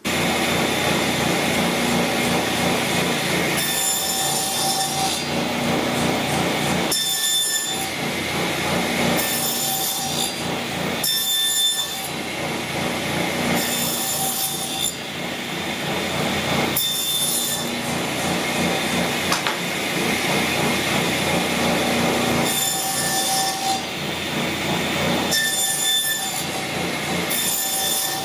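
Table saw with an ordinary blade running while a wood panel is fed across it to cut a dado in repeated passes; the steady blade hum turns brighter and harsher each time the blade bites the wood, about ten times.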